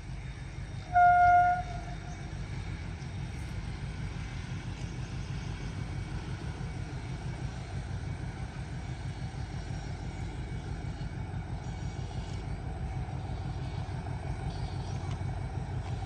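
A D19E diesel locomotive's horn gives one short toot about a second in, over the steady low rumble of the train running.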